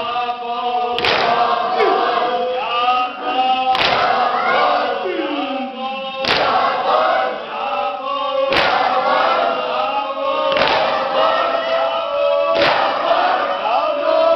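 A crowd of men sings a mourning noha (lament) together in a hall. The singing is punctuated by a sharp, unison slap about every two and a half seconds, six times: the mourners beating their chests (matam) in time with the lament.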